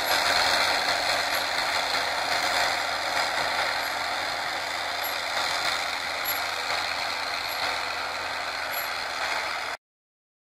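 Massey Ferguson MF 1078 tractor, with its new engine, running under load as it tows a disc harrow, with the rattle and clatter of the harrow's discs and frame; steady, slowly fading as it moves away, then cut off suddenly near the end.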